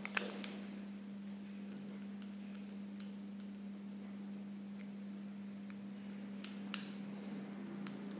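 A steady low electrical hum, with a few faint clicks scattered through it; most of the clicks come near the end.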